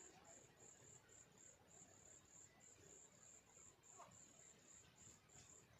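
Faint high-pitched insect chirping, short pulses repeating about three or four a second. One faint short call comes about four seconds in.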